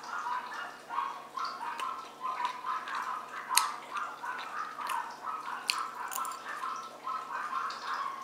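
A person chewing a mouthful of fried rice with the mouth closed: a regular run of soft, wet mouth sounds about twice a second, with two sharp clicks about three and a half and five and a half seconds in.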